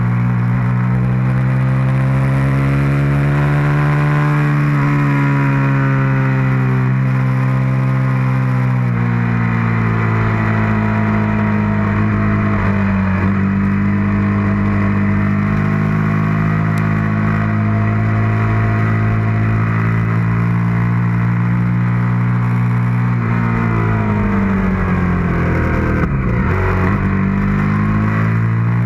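Suzuki SV650's 645 cc V-twin engine under way at track pace, heard from on board. Its pitch climbs for the first few seconds, falls back, then holds high and steady through a long stretch; near the end it drops steeply and climbs again.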